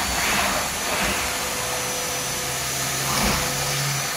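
Vacuum cleaner running steadily with a long hose and metal wand, its floor nozzle sucking over a fibreglass panel. The rushing suction carries a steady whine, with a few brief surges as the nozzle is worked.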